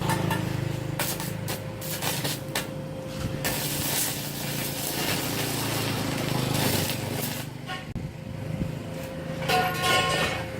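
Stick-welding arc crackling and sizzling with irregular sharp pops as a high-strength electrode of the kind used for cast iron burns off an IGBT ARC200 inverter welder, over a steady low hum. It eases briefly about eight seconds in.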